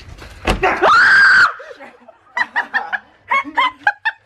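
A sharp click, then a loud rising scream held for about a second, followed by a string of short, high-pitched bursts of laughter.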